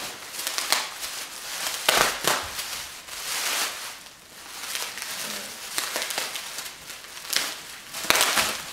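Bubble wrap and plastic sheeting crinkling and crackling in irregular sharp bursts as they are pulled and handled.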